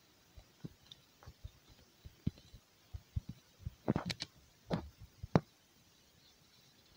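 Fingertip taps on an Amazon Kindle Fire tablet's touchscreen while typing on the on-screen keyboard: a run of soft, irregular taps, with louder ones from about four to five and a half seconds in.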